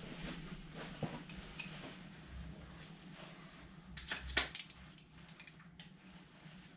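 Small loose metal parts of a Mopar 360 small-block V8 clinking as they are handled and set down: a few light clinks, then a quick cluster of several about four seconds in, over a low steady hum.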